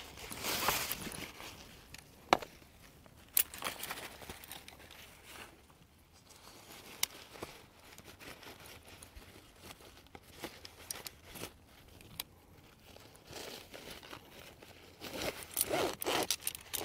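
Fabric carry case rustling as a folded metal camping-table leg frame is worked down into it, with a few sharp clicks of the frame knocking. The rustling is loudest at the start and again near the end.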